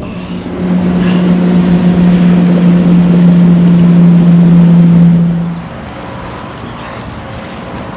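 A loud, steady motor hum at one unchanging pitch that cuts off abruptly about five and a half seconds in, leaving a quieter steady hiss.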